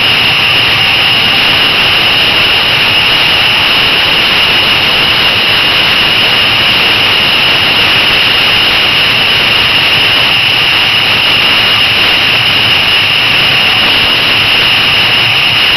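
Steady, loud rush of wind and road noise from an electric motorcycle with an EnerTrac hub motor cruising at highway speed. There is no engine sound, and the noise holds level with no change in speed.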